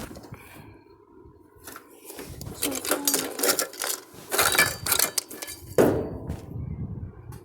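A run of clattering clicks and knocks as small hard objects are handled, with one sharper knock near six seconds.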